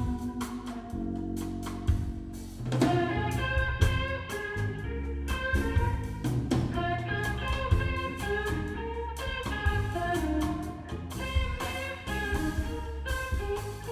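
Live instrumental groove from a trio: electric guitar playing a melodic line over electric bass and drum kit.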